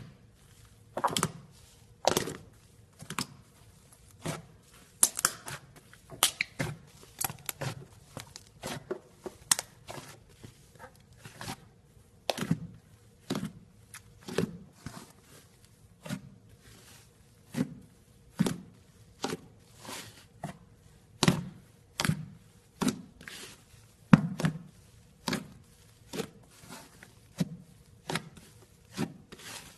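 Slime being squished and poked by hand, giving irregular sticky pops and clicks about one or two a second.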